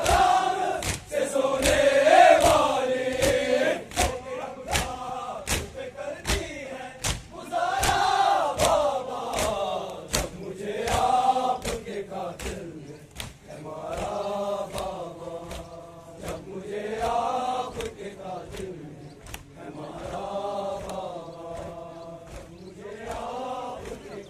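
A crowd of men chanting a Muharram lament (nauha) in unison, rising and falling in phrases of about three seconds, over sharp rhythmic chest-beating (matam) slaps about twice a second.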